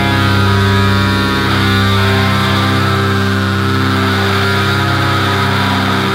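Sludge metal: heavily distorted electric guitars holding a long, droning chord that rings out with amp noise. The low drone shifts about two and a half seconds in.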